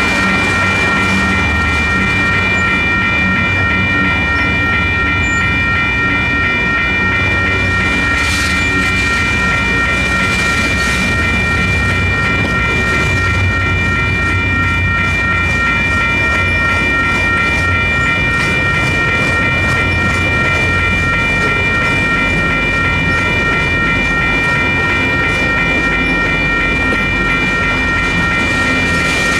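Freight train cars rolling steadily through a grade crossing: a low rumble with wheel clatter on the rails. Over it the crossing's WCH electronic bells ring without a break while the gates are down.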